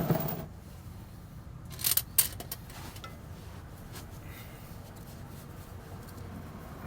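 Oil drain pan being moved aside under a vehicle: a few sharp knocks and clatters about two seconds in, then a few lighter clicks.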